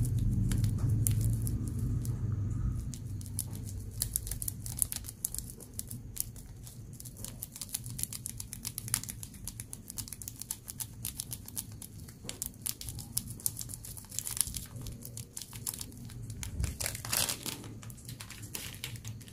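Thin plastic bag crinkling and rustling in the hands while citric acid crystals are worked out of it into a small plastic measuring spoon: a steady stream of small irregular crackles, with a louder bout of crinkling near the end. A low rumble fades out over the first few seconds.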